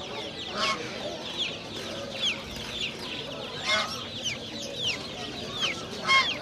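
Many caged birds calling at once: a dense chatter of quick falling chirps from small birds, with louder squawks about half a second in, near four seconds, and just before the end.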